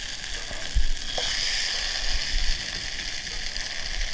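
Boiled cassava (mogo) pieces sizzling steadily in hot oil in a wok just after the heat is turned off, with a low thump about a second in.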